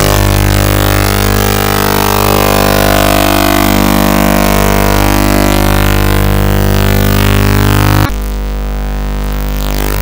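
Loud, heavily distorted electronic music over a steady low drone. About eight seconds in it suddenly drops to a thinner, quieter passage.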